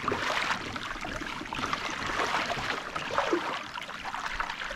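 Water sloshing and splashing against a kayak hull out on the sea, a steady rushing noise.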